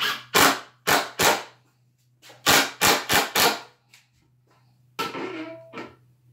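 Cordless impact driver given short trigger pulls: two quick runs of four sharp hammering bursts, then a longer burst near the end.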